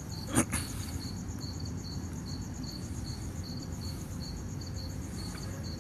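Cricket chirping in a steady, even rhythm over a low background hum, with a short click about half a second in.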